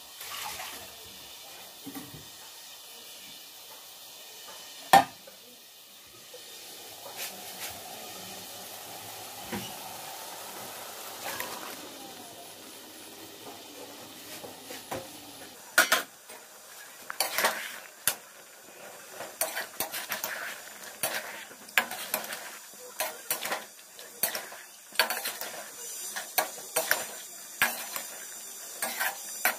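Marinated mutton sizzling in a metal kadai, with a metal spatula scraping and knocking against the pan as it is stirred; the knocks come thick and fast in the second half. A single sharp knock about five seconds in.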